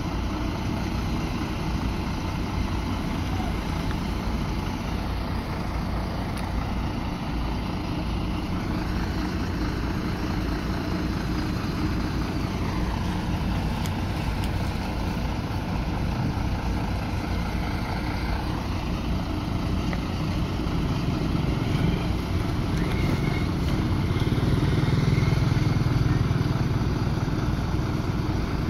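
Heavy diesel engine of the recovery crane running steadily under load, with its pitch dipping and recovering midway and growing louder towards the end.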